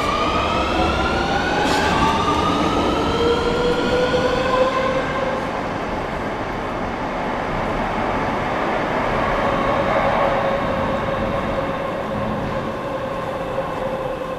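Madrid Metro Serie 3000 electric train pulling away from the platform: the traction motors' whine rises in pitch through several tones over the first few seconds. It then settles into a steadier hum that slowly fades as the train draws off into the tunnel.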